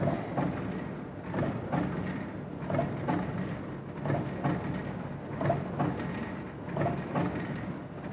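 Plastic bag cutting machine running, its cutter knocking in a steady rhythm of about two strokes a second over a continuous motor hum.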